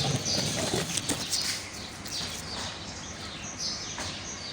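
Small birds chirping: a quick series of short, high chirps, each falling in pitch, over steady outdoor background noise.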